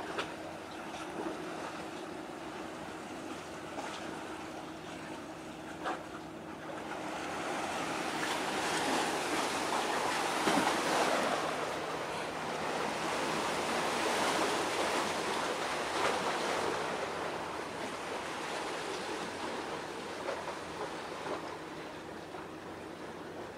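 Harbour ambience of waves washing and wind. The noise swells for several seconds in the middle, then eases, over a faint low steady hum.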